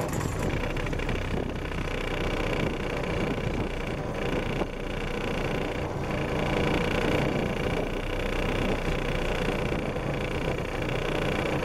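Mercury 2.5 hp two-stroke outboard motor running steadily just after a pull start, still on choke and in gear, pushing the small aluminum boat along.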